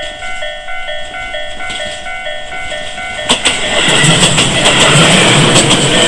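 Japanese level-crossing warning bell ringing: an electronic chime alternating rapidly and steadily between two pitches, heard close up. About three seconds in a train reaches the crossing and passes, its loud rumble and wheel clicks rising over the bell.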